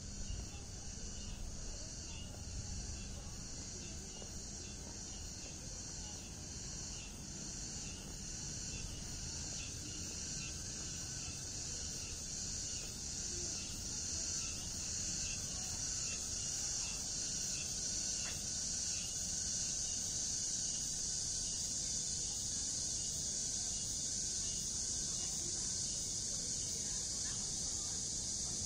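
Chorus of insects: a steady, high-pitched, fast-pulsing trill that grows louder about halfway through, over a faint low background hum.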